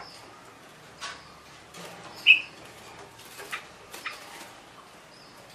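Young red-whiskered bulbul giving a few short, scattered chirps with soft clicks and taps between them, the loudest chirp about two seconds in. This halting calling is a juvenile learning to sing.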